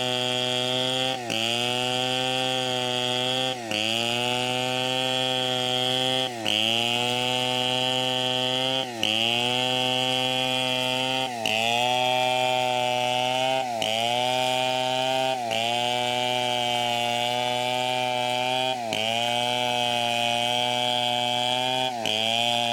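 Chainsaw running at high throttle, cutting teak wood. Every two to three seconds the sound briefly dips, then the pitch sags and climbs back as the saw bites into the cut again.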